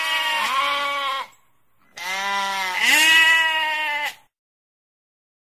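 Sheep bleating twice. A wavering call ends about a second in, and a second long bleat, about two seconds long, starts about two seconds in.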